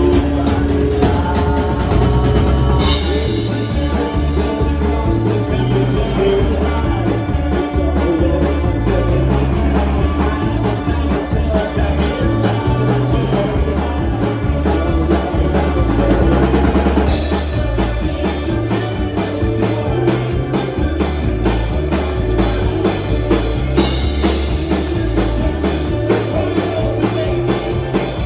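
Live band music: a drum kit keeps a steady, driving beat under the rest of the band.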